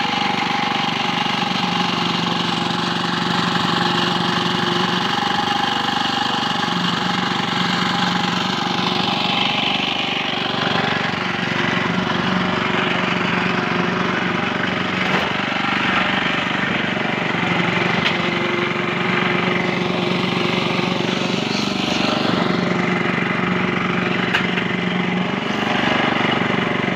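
A machine engine running steadily, the kind used to pour and compact a concrete roof slab.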